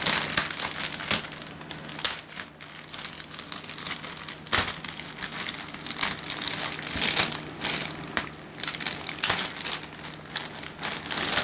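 Thin clear plastic wrapping crinkling and crackling as hands handle and pull it open around a laptop backpack, in an irregular run of rustles and sharp crackles.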